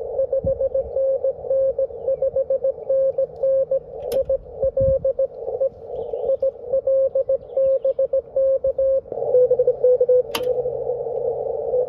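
Morse code (CW) signal on the 20-meter band heard through a Yaesu HF transceiver's speaker: a steady mid-pitched beep keyed on and off in Morse rhythm over receiver hiss. About nine seconds in, the hiss gets louder and the tone drops slightly in pitch as reception switches from the 125-foot delta loop to the two-element wire yagi. There are two sharp clicks along the way.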